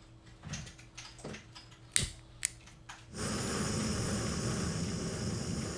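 A lighter clicks several times at the burner of a canister gas camping stove. About three seconds in the gas catches, and the burner runs with a steady hiss.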